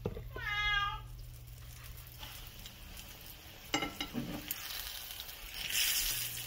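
Oil sizzling as bannock dough deep-fries, the hiss swelling near the end. A short meow sounds just after the start, and a few sharp utensil clicks come about four seconds in as a fried piece is lifted out.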